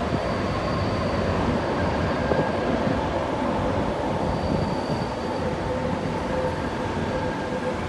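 Typhoon wind blowing steadily, with faint, thin whistling tones held over it.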